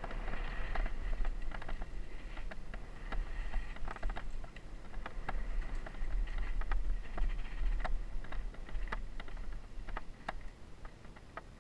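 Mountain bike running down a rough dirt trail, heard from a camera mounted on the rider or bike: a steady wind rumble on the microphone under irregular rattling and clicking from the bike over the bumps. It quietens near the end.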